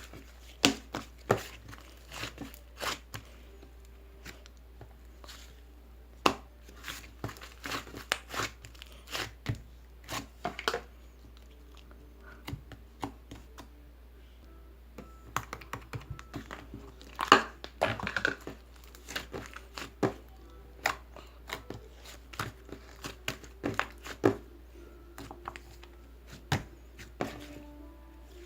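Close crinkling and crackling of something being handled and torn, in irregular sharp crackles that are busiest about a third of the way in and again in the second half.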